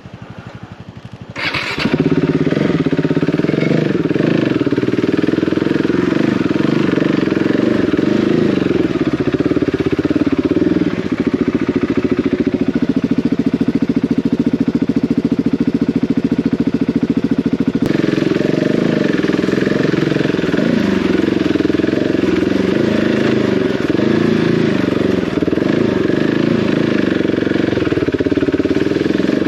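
Single-cylinder trail motorcycle engine ticking over, then pulling away loudly about a second and a half in and running on and off the throttle over a rough, lumpy lane.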